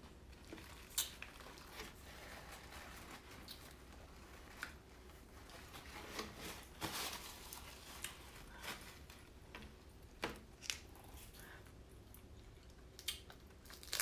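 Close-up mukbang eating sounds: wet chewing and lip smacks, with scattered short clicks and a longer squishy stretch about halfway through.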